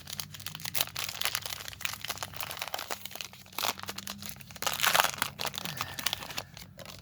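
Baseball card pack wrapper crinkling and tearing as it is opened, a dense run of crackles that are loudest about three and a half and five seconds in.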